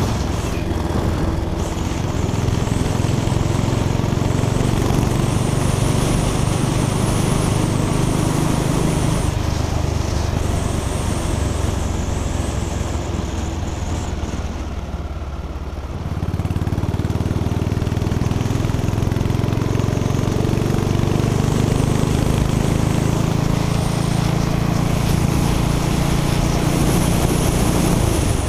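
Motorcycle engine running at road speed under the rider, with wind noise. About halfway through the engine note fades as the throttle eases off for a couple of seconds, then comes back with power and climbs slowly in pitch.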